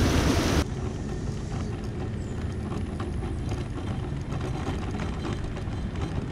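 Heavy rain pouring for about half a second, then it cuts off sharply to a mobility scooter riding along a rough asphalt street: a steady low rumble of its motor and wheels with light clicking rattles.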